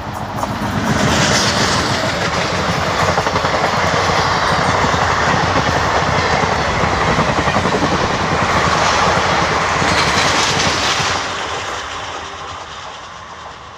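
Indian Railways passenger train passing close by at speed: a loud, steady rush of wheels and coaches that swells about half a second in and dies away over the last few seconds.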